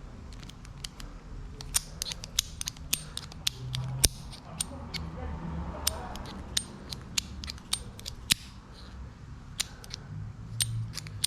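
Ratcheting torque wrench clicking as a saddle clamp bolt is tightened toward 12 Nm, in a run of sharp, irregular clicks.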